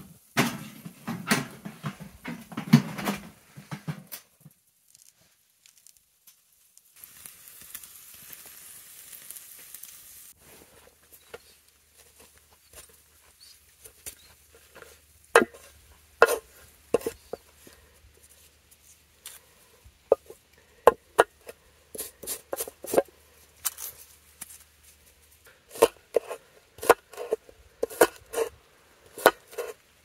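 Cooking sounds: irregular clinks and knocks of utensils against pots and pans, with a short hiss about a quarter of the way through.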